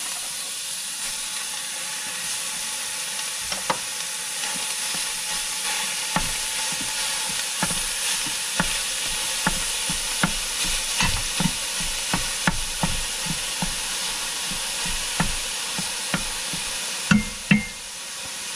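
Beef sizzling as it browns in the stainless inner pot of an electric pressure cooker, a steady hiss. A spoon scrapes and taps against the pot over and over as the meat is stirred, with two louder knocks near the end.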